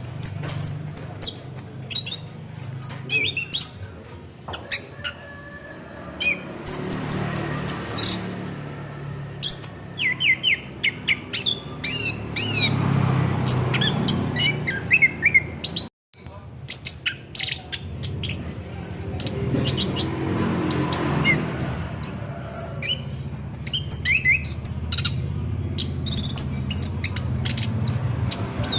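Chestnut-capped thrush (anis kembang) singing a continuous rolling song of rapid, high chirps and quick sweeping whistles. The song cuts out very briefly about halfway through.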